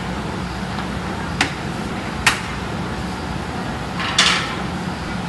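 Steady factory workshop hum, with two sharp knocks about a second and a half and two and a quarter seconds in, and a short scraping rustle about four seconds in, from screen-printing work on glass stove panels.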